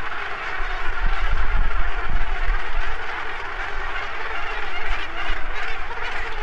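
Dense, continuous din of a Cape gannet breeding colony, thousands of birds calling at once, with a low rumble underneath.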